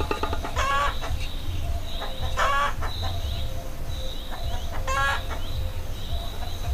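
Chickens calling: three short clucking calls about two seconds apart, over a thin, steady high chirping and a low rumble.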